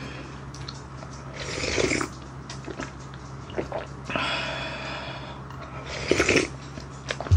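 Slurping hot broth of pork back-bone stew from a wooden ladle, several slurps with short pauses between.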